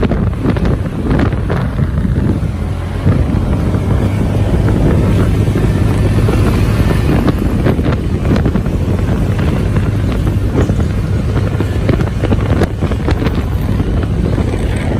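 Wind rushing over the microphone on a moving motorcycle, over the bike's steady engine hum and road noise.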